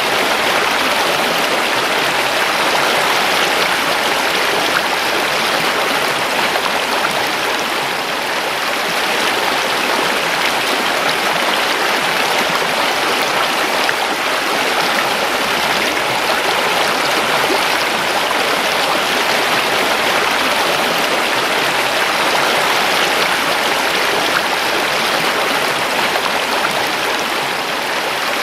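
River water flowing and rushing over rocks, a steady, even stream sound.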